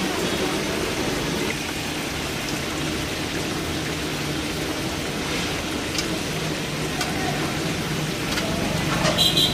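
Chicken kebab pieces deep-frying in hot oil in a steel karahi: a steady sizzling and bubbling crackle.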